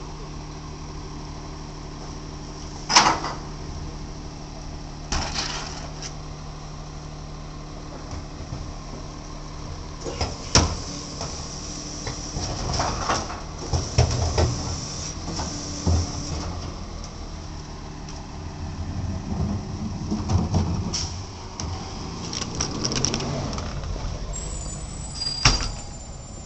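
Rear-loading garbage truck's engine idling with a steady hum, with loud bangs and clatter from loading at the back of the truck, the sharpest about three seconds in and again near the end, and a busier stretch of knocking and engine noise in the second half.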